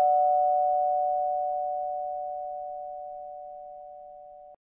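Two-note ding-dong chime, struck just before, ringing out as two steady tones that fade away evenly and then cut off suddenly near the end.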